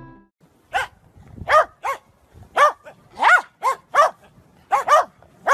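A small dog barking in short, high yaps, about ten of them at uneven intervals, some in quick pairs.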